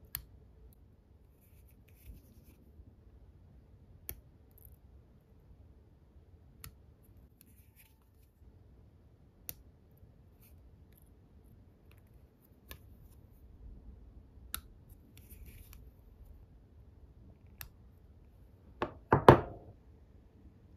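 Small hobby nippers snipping the ends of thin metal spoke wire on a scale model wheel: about eight sharp clicks, two to three seconds apart, with light rubbing of fingers on the part in between. Near the end comes a louder knock and clatter, the loudest sound of all.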